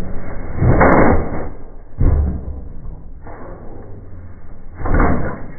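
Delmag F5 explosion rammer running: three heavy bangs, about a second in, two seconds in and near the end, as it fires and jumps, then comes back down.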